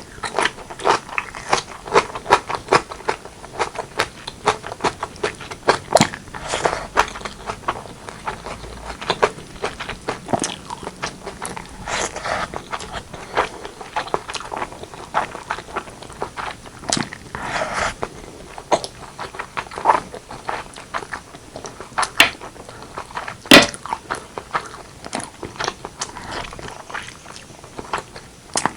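Close-miked eating sounds: chewing, biting and wet mouth smacks on braised pork leg and rice, an irregular run of sharp clicks and smacks with a few louder bites.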